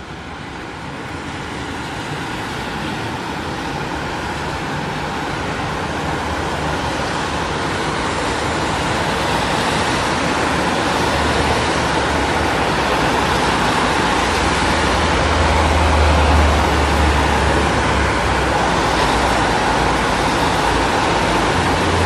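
Dense city street traffic: a continuous wash of car engines and tyre noise, gradually growing louder over the first half. A deeper low engine hum swells about halfway through and again near the end.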